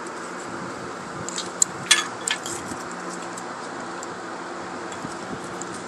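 A few light clicks and clinks from handling an engine wiring harness and its connectors, over a steady background hiss and low hum.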